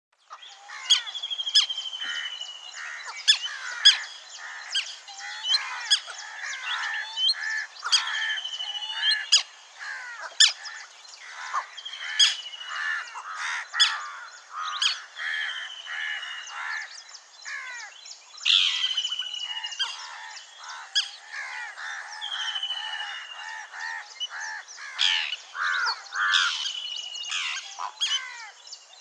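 Rainforest bird chorus: many birds calling over one another, with a repeated falling whistle, sharp chips and warbling calls. It starts abruptly just after the beginning.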